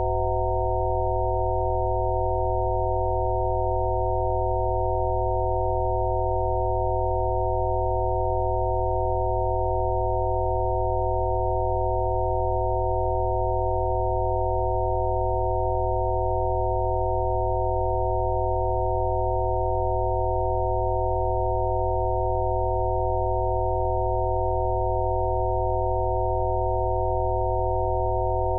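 Synthesized Rife-frequency therapy tones: several pure sine tones sound together and hold perfectly steady, with a deep low tone beneath them.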